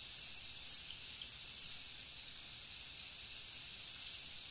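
Steady chorus of insects: a continuous high-pitched chirring with a pulsing layer above it.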